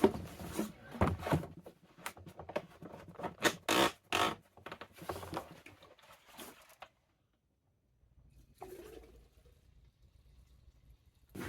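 Knocks, clicks and scrapes of handling a chainsaw and its caps while refilling it, with some liquid being poured in; the sounds stop abruptly about seven seconds in and resume faintly.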